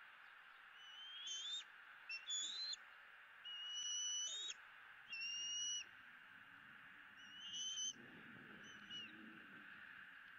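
Bald eagle giving a series of about six high, thin piping calls, each lasting under a second, some rising slightly in pitch, over a steady hiss.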